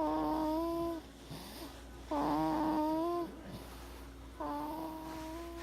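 Snoring that comes out as a held, sung-sounding note on each breath: three steady tones at the same pitch, each about a second long, about two seconds apart.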